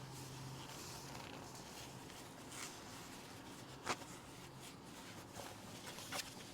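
Hands quietly handling the items and packaging of a book subscription box, with soft rustles, a sharp click about four seconds in and a smaller click near the end. A faint low hum stops after about four and a half seconds.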